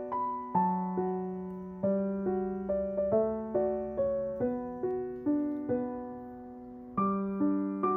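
Background music: a slow solo piano melody, single notes struck one after another and left to fade.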